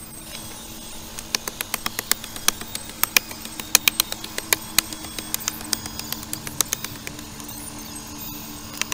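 Short-handled hand pick striking stony soil and rocks at the bottom of a dug pit: sharp irregular clacks, a few a second, starting about a second in and easing off about seven seconds in.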